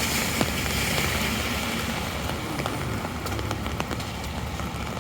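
Heavy rain falling on an umbrella overhead and the wet street: a steady hiss with scattered sharp drop ticks, over a low wind rumble.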